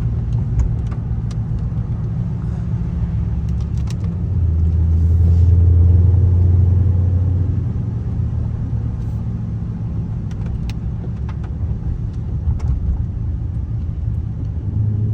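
Dodge 392's 6.4-litre HEMI V8 heard from inside the cabin while driving, a steady deep drone that swells under light throttle about five seconds in and then settles back, with road noise and occasional sharp clicks.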